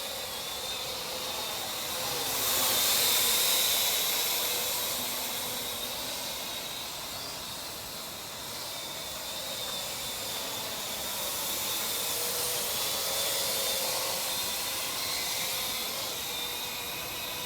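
Parrot AR.Drone quadcopter flying, its four electric rotors making a steady whirring hiss with a faint whine that drifts in pitch. It grows louder twice as the drone comes closer.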